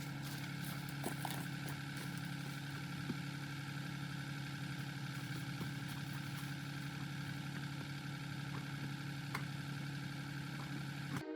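Diesel engine running at a steady speed, an even hum with no revving. It cuts off abruptly just before the end.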